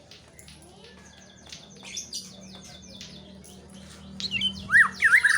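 White-rumped shama calling: a run of short, quick chirps, then loud whistled notes sliding up and down near the end.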